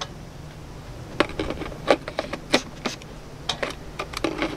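Lens fitted with an M48-to-Pentax K adapter being mounted onto a Pentax K-1 camera body: a run of short, irregular clicks and scrapes of the bayonet mount and hands on the metal starting about a second in.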